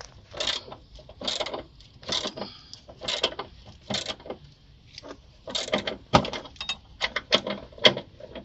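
Ratchet wrench clicking in short repeated strokes as a nut is unscrewed, about one stroke a second at first, then quicker and closer together in the last few seconds.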